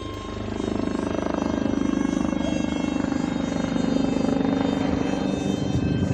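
Brushless electric motor and propeller of a small RC model jet buzzing in flight, with a steady high whine over it; it grows louder about a second in.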